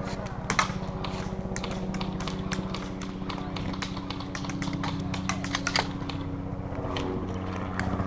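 Irregular sharp clicks and snaps of airsoft guns firing and BBs striking, some in quick runs, over a steady low hum.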